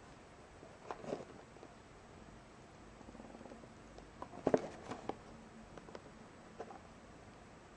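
Small cardboard box handled and opened by hand: faint scrapes and taps of fingers on the cardboard, with a short cluster of sharper clicks and crinkles about four and a half seconds in.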